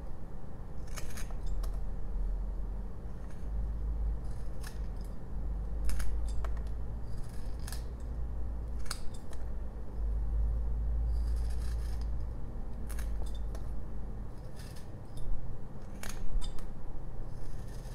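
Carving knife cutting into a small block of jelutong wood: irregular short, crisp slicing cuts and chips snapping off, every second or two, over a low rumble.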